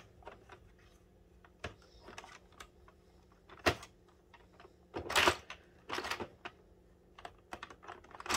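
Irregular light plastic clicks and taps as a crochet hook picks the stitches off the red plastic needles of an Addi circular knitting machine, with a few louder knocks around the middle.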